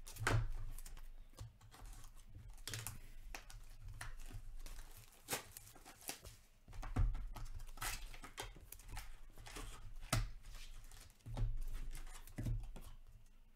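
Upper Deck Artifacts hockey trading cards being handled and sorted: irregular rustling, sliding and light clicks as cards are picked up, shuffled and set down.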